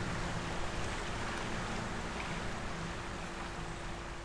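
Steady wash of flowing river water, with a constant low hum underneath.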